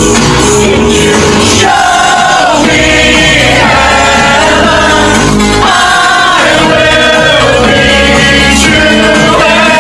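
Live electronic synth-pop: a male lead vocalist sings over a steady synth bass and keyboard backing, at concert volume. The sung line comes in about two seconds in and runs in separate phrases.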